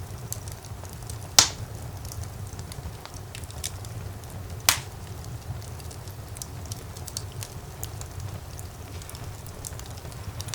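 Wood fire burning in a fireplace: a steady low rumble of flames with frequent small crackles, and two loud pops, one about a second and a half in and another about three seconds later.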